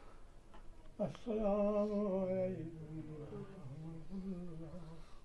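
A man's voice chanting in long, held, slightly wavering notes, loudest on one drawn-out note about a second in, then going on more softly.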